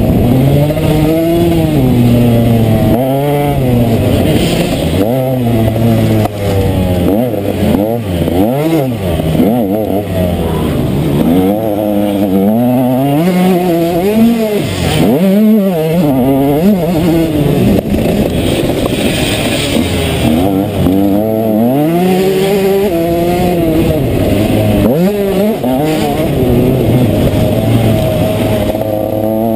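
KTM 125 SX two-stroke motocross bike's engine revving hard, its pitch climbing in repeated sweeps as the rider accelerates through the gears and dropping back between them, heard from a helmet-mounted camera.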